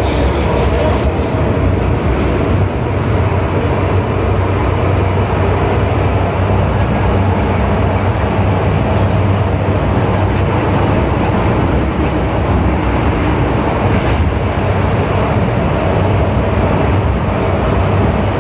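Inside an MTR Island Line M-train (Metro-Cammell electric multiple unit) car running through the tunnel between stations: a steady, loud rumble of wheels on rail and traction equipment with a low hum. A few faint clicks come in the first couple of seconds.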